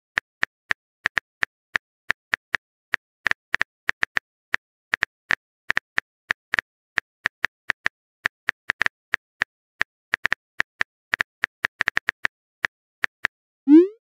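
Phone keyboard typing sound effect from a texting-story app: a run of short, sharp clicks at an uneven pace, about four a second. Near the end a short rising tone sounds, the app's new-message pop.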